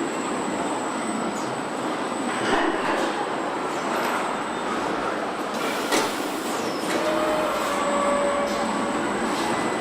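Car assembly-line machinery running: a steady mechanical din with a sharp clank about six seconds in and a brief steady whine about seven seconds in.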